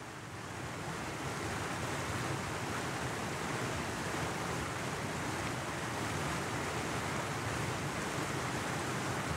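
Rushing water of a rocky mountain stream: a steady noise that fades in over the first second or two and then holds.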